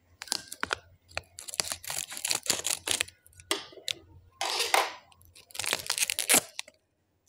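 Small foil Jolo Chip packet crinkling as it is handled and cut open with scissors: irregular crackles and rustles, with a longer rustle about four and a half seconds in.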